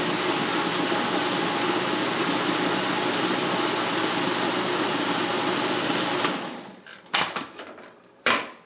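Food processor motor running steadily, blending a thick green pepper-and-herb sauce, then switched off about six seconds in and spinning down. A few plastic clicks and knocks follow as the feed-tube pusher is lifted out, the loudest near the end.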